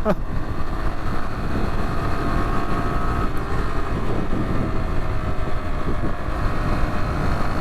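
Rieju Adventura 125's single-cylinder engine running steadily at road speed, mixed with heavy wind buffeting on a helmet-mounted microphone.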